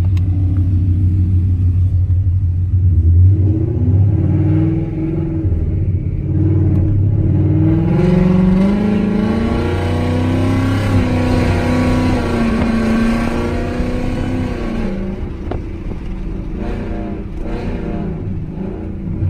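2018 Ford Mustang GT's 5.0 V8 and loud aftermarket exhaust heard from inside the cabin under acceleration. The engine note climbs over several seconds, holds steady while the car cruises, then falls away near the end as the throttle is eased off.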